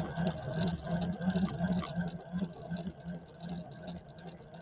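Electric yarn ball winder running, winding a skein into a center-pull cake. Its motor hum pulses a few times a second and gradually grows fainter.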